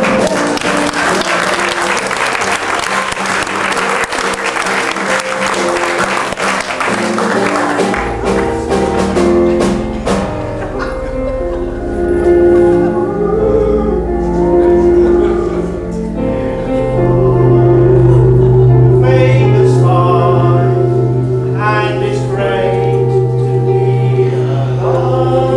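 Audience applause over live band music for the first several seconds. The music then continues on its own over a deep sustained bass drone, and singing voices come in near the end.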